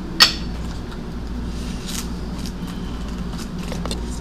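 A sharp plastic clink about a quarter second in as a juice jug is handled, then a soft swish and a few faint handling clicks, over a steady low hum.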